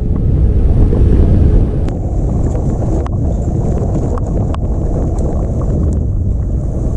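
Heavy wind buffeting the microphone as a steady low rumble, with scattered sharp clicks and rattles through it. The rumble is loudest in the first second and a half.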